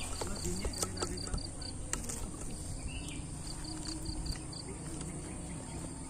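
Cricket chirping in two short runs of quick, evenly spaced high chirps, about four a second, over a steady high insect hum, with a few faint clicks.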